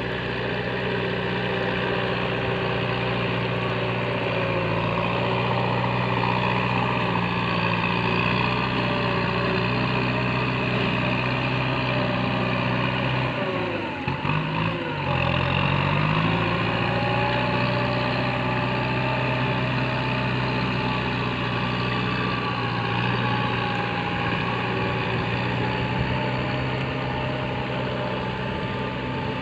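Tractor engine running steadily under load as it pulls a disc implement through a flooded rice paddy. Its engine speed sags and then picks back up about halfway through, as the tractor turns in the water.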